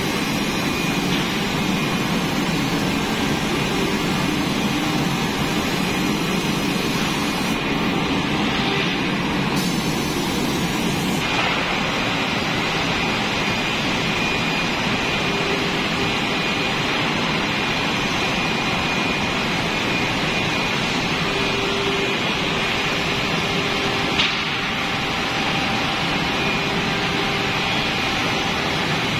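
Steady rushing machine noise of an automatic furniture spray-painting line, with faint humming tones and one short click late on.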